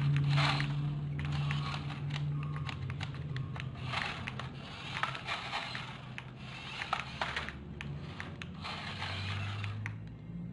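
Irregular clattering, scraping and clicking of hard plastic, such as a toy being handled or moving across a floor, over a steady low hum.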